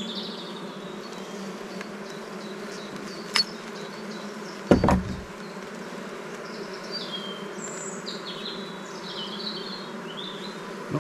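Honeybee colony buzzing steadily from an open, crowded hive. There is a sharp click about a third of the way in and a loud knock near the middle.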